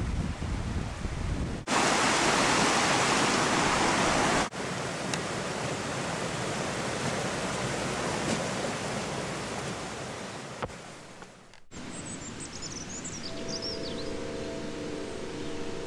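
Steady rushing noise in abruptly cut sections, with a louder, brighter rush from about 2 s in to about 4 s in. Near 12 s it cuts to a quieter ambience with a few high chirps and low steady tones.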